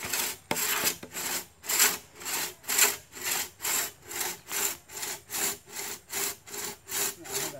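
Two-man crosscut saw cutting through a tree trunk near its base, rasping in steady back-and-forth strokes, a little over two a second.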